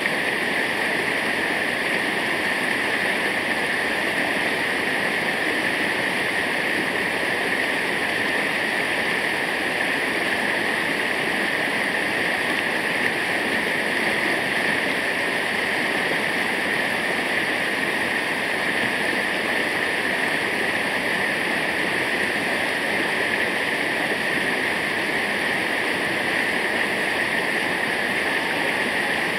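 Steady, unbroken rushing of falling water from a waterfall.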